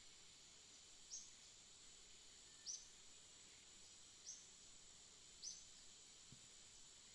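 A small bird gives short, high, single chirps, four of them, spaced about a second and a half apart, over a steady faint high-pitched ring of background noise.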